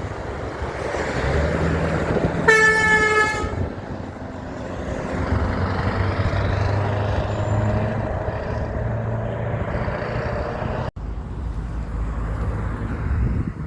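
A truck's horn sounds one blast of about a second, a few seconds in, over the running engine and road noise of passing heavy trucks.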